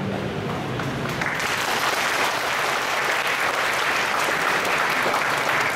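Audience applause, swelling to full clapping about a second in and holding steady.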